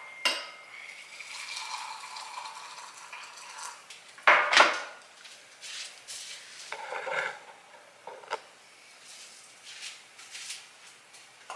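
Dishes and utensils clinking and knocking on a kitchen counter: a handful of separate knocks, the loudest about four seconds in.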